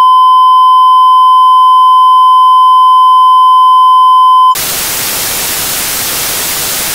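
A loud, steady, high test-tone beep, the reference tone that plays with TV colour bars. About four and a half seconds in it cuts off abruptly and gives way to loud hiss of TV static.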